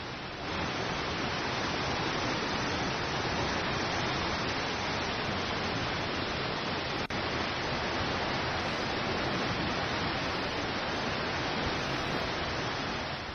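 The Alaknanda river in flood, swollen and muddy after heavy rain, rushing past as a steady noise of water. It grows louder about half a second in and drops out for an instant about 7 s in.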